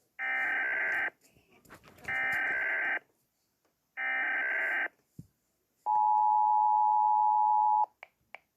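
US Emergency Alert System alarm: three buzzy one-second bursts of SAME header data tones, about a second apart, followed by the steady two-tone attention signal (853 and 960 Hz), which runs for about two seconds and cuts off suddenly.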